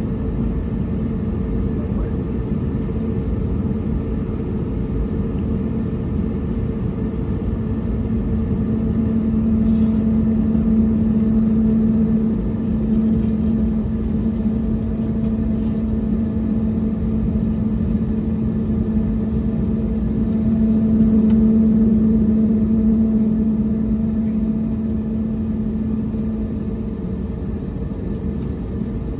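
Jet airliner taxiing with its engines at idle, heard from inside the cabin: a steady rumble with a constant low hum. It swells twice, about a third of the way in and again about two-thirds through.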